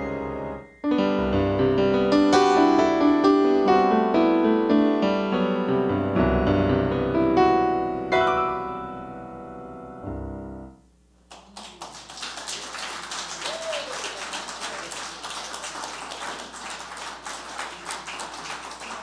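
Solo piano playing a slow piece that fades and stops about eleven seconds in, followed by an audience applauding.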